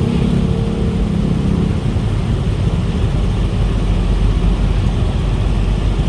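Vehicles passing close by: a steady, loud low rumble, with a brief low hum in the first couple of seconds.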